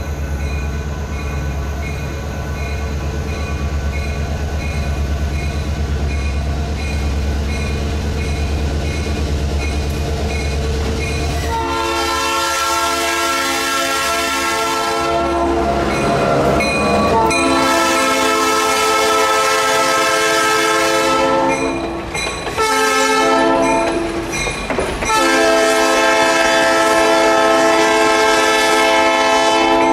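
Diesel locomotive air horn blowing the grade-crossing signal, long, long, short, long, starting about twelve seconds in, over the low rumble of the diesel locomotives working past.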